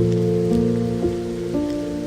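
Slow, soft piano music: held notes ringing on, with a new note added about every half second, over the steady hiss of rain.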